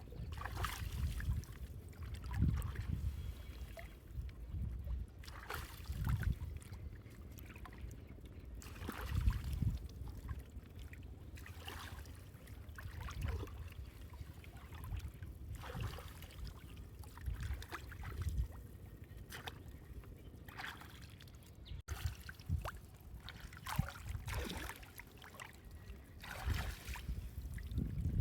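Water splashing and sloshing irregularly, a splash every second or two, over a low rumble.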